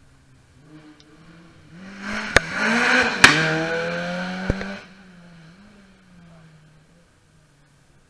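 Rally car passing at speed on a wet tarmac stage: the engine note swells, sweeps downward in pitch as the car goes by, then drops away abruptly. Three sharp cracks are heard during the pass.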